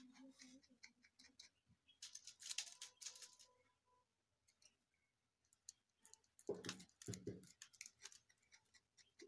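Faint scratching and small clicks of metal tweezers crushing and scraping the heads off matchsticks, the crumbled head composition falling onto paper; the scratching is densest a couple of seconds in. Two short, low soft sounds come about two-thirds of the way through.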